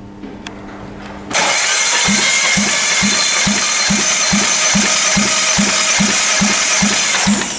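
A 1.6-litre 16-valve Citroën/Peugeot engine is cranked over for a compression test on its third cylinder. About a second in, a loud steady whir starts, with a regular pulse about twice a second as the cylinder comes up on compression. Near the end it winds down with a falling whine.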